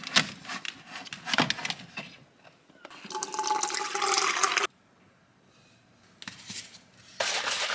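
Refrigerator water dispenser running into a stainless-steel tumbler for about two seconds, then cutting off sharply. Before it, clinks and knocks of tubs being taken from a cupboard shelf; near the end, light taps of a scoop and a steady hiss.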